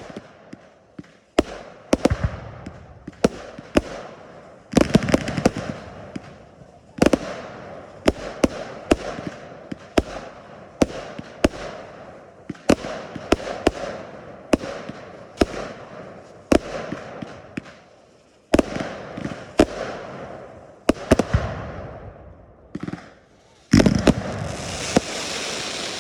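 Fireworks going off in quick succession: many sharp bangs, about one or two a second, with crackling between them. Near the end a dense, sustained crackling hiss starts after a brief lull.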